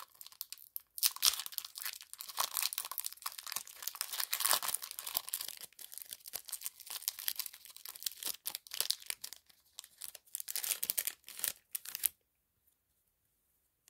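A hockey card pack's wrapper being torn open and crinkled by hand: a long run of tearing and crinkling that stops abruptly about twelve seconds in.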